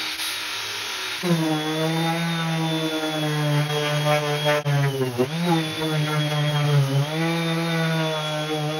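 A cordless drill spins a sanding drum for about the first second. Then a Bosch 5-inch random orbital sander runs steadily on a black walnut slab, and its motor hum dips in pitch briefly twice.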